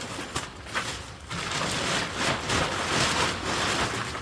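Rustling and crinkling of the truck tent's fabric being handled and shifted, with a few short knocks. The rustling grows louder and denser about a second in.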